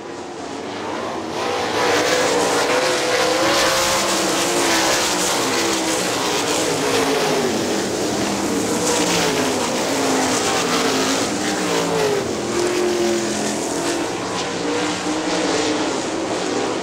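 Winged 410 sprint cars racing on a dirt oval, their 410-cubic-inch V8 engines running hard with the pitch rising and falling again and again. The sound swells over the first couple of seconds as the cars come closer.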